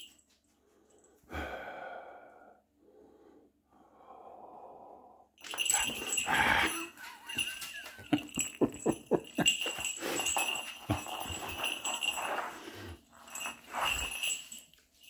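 Small bell on a cat's collar jingling rapidly, with scuffling and knocks as the cat tussles with a hand on the floor, starting about five seconds in.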